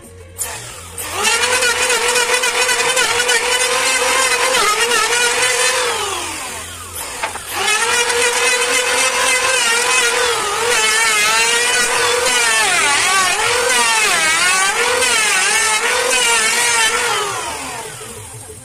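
Electric hand planer motor spinning up and running with a high whine, winding down about six seconds in and starting again. Its pitch dips and wavers repeatedly as the blades cut along the wooden boards, then it winds down near the end.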